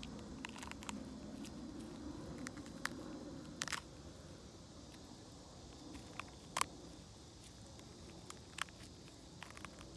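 Wild oyster mushrooms being pulled and torn off a log by a gloved hand: scattered small snaps and crackles over a low, steady outdoor background.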